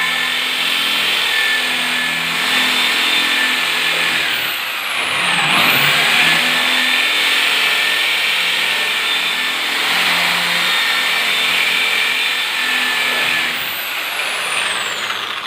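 Electric hammer drill with a 10 mm masonry bit boring into a reinforced-concrete ceiling slab, running steadily with small shifts in pitch. The bit runs into the slab's steel reinforcing bar, so the hole has to be abandoned.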